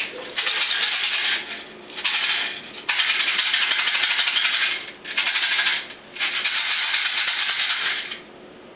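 Airsoft BBs rattling inside an M8 airsoft rifle's magazine as it is shaken hard in five bouts, separated by short pauses; the magazine is being shaken to get it to feed BBs.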